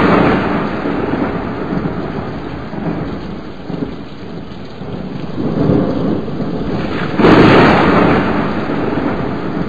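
Thunderstorm: steady rain with thunder, a loud clap about seven seconds in that rumbles away slowly.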